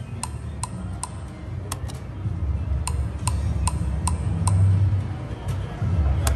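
Slot machine game audio: a steady ticking, about two to three sharp ticks a second, each with a short ring, over low background music.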